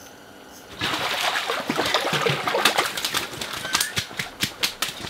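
A hooked fish splashing as it is hauled up out of the ice hole about a second in, then flopping and slapping on the ice in quick, irregular smacks.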